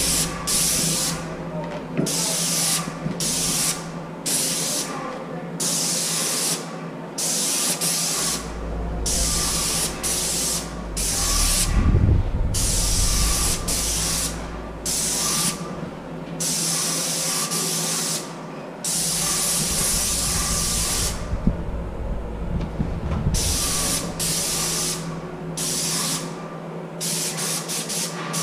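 Airless paint sprayer with a 310 fine-finish tip at about 1400 PSI spraying primer: the gun hisses in repeated short bursts, cut off in brief gaps each time the trigger is released, over a steady low hum.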